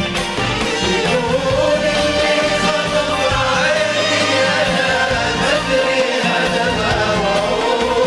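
Live Arabic orchestral music: a violin section plays a melody in unison over oud and a rhythmic beat.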